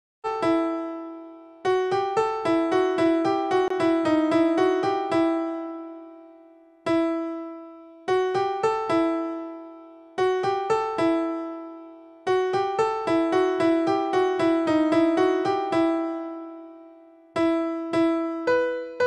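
Background music: a keyboard melody of quick, struck notes in short phrases, each phrase ending on a held note that dies away before the next begins.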